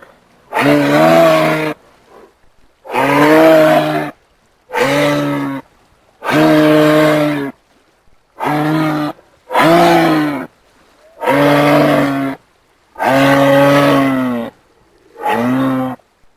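Nine low, moo-like calls from a large hoofed animal, each about a second long with a steady pitch and short silent pauses between them.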